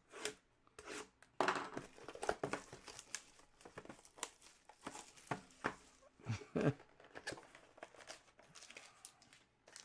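Irregular crinkling and tearing of trading-card pack wrappers as packs are torn open and handled.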